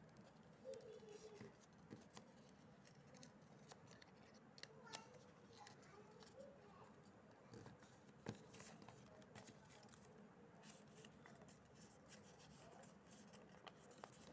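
Faint crinkling and scattered clicks of stiff paper being folded and creased by hand, over near silence.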